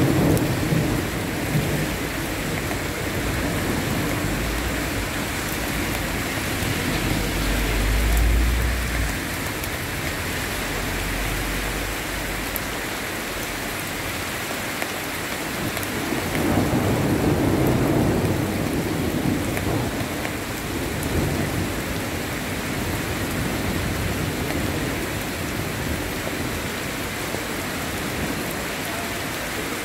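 Heavy rain pouring steadily onto a wet street, with a deep rumble of thunder about a quarter of the way in and another low swell a little past the middle.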